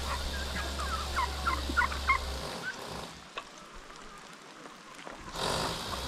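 Chickens clucking and calling in a string of short, quick notes during the first two seconds, over a steady low hum. The hum drops away partway through and comes back near the end.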